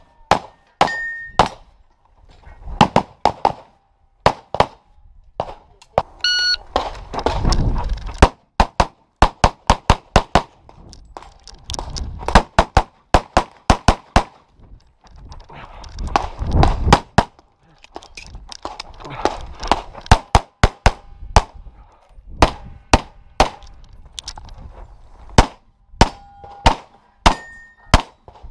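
Handgun shots fired in quick strings of several a second during a USPSA practical pistol stage, with steel targets ringing when hit. A short beep sounds about six seconds in.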